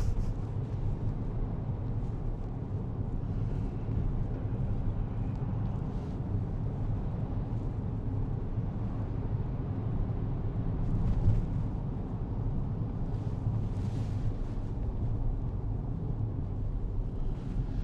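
A car driving at steady speed: an even low rumble of engine and tyres on the road.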